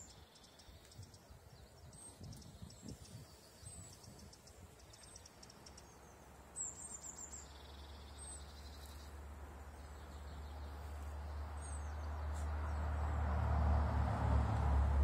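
Small garden birds chirping: short, high chirps and quick trills, repeated every second or two. Over the second half a low rumble and hiss build steadily and become the loudest sound.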